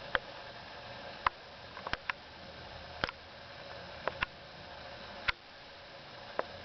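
Kitten playing with a catnip toy: about nine short, sharp taps and clicks at irregular intervals over a steady low hiss.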